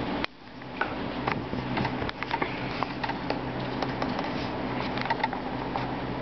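Computer keyboard keys clicking in irregular runs of typing, over a steady hum.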